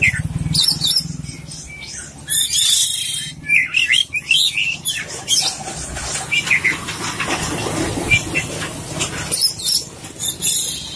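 Oriental magpie-robin (kacer poci) singing a varied song of quick chirps, whistles and mimicked phrases, in short bursts one after another.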